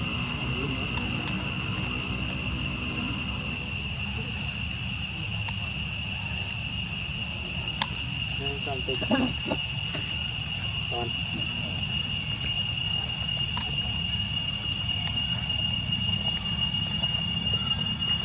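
A steady, high-pitched insect chorus droning without a break, with a brief faint call about nine seconds in.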